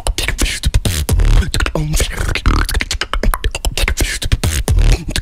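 Solo beatboxing, close on a handheld microphone: a fast, dense run of mouth-made kick, snare and hi-hat sounds with deep bass hits and short hummed tones woven between them.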